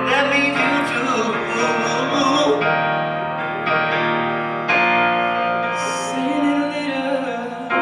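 Live keyboard playing sustained chords that change every second or two, with a singing voice over them in places.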